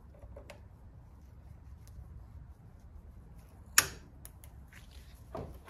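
Steel locking pliers handled against a cast-iron bench vise's swivel base: a faint click early, then one sharp metal click a little before four seconds in, a few small ticks, and a softer knock near the end, over a low steady hum.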